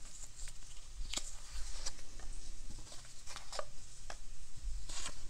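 Hands handling small drawn items, soft rustling with a few light, sharp clicks about a second apart.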